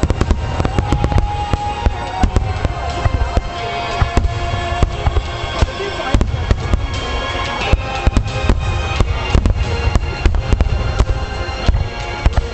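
Large fireworks display: a rapid, continuous barrage of bursting shells, booms and crackles, with music playing underneath.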